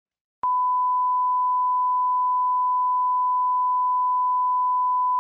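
A steady electronic beep: one pure, unchanging tone held unbroken, switching on with a click about half a second in.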